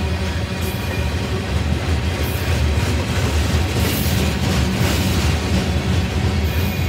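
Loaded covered hopper cars of a grain train rolling past: a steady, loud rumble of steel wheels on the rails, with brief high hisses every second or so.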